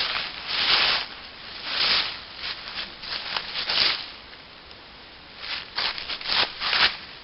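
Footsteps crunching through dry leaf litter, a run of steps, a short pause, then several more steps near the end.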